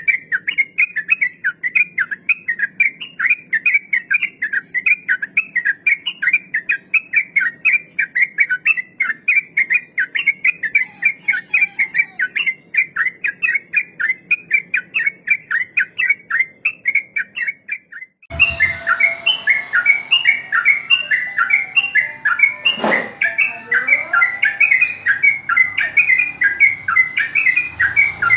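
Yellow-vented bulbul (trucukan) singing a long 'ropel' run of rapid, repeated chattering notes. The song breaks off briefly about eighteen seconds in, then carries on over more background noise.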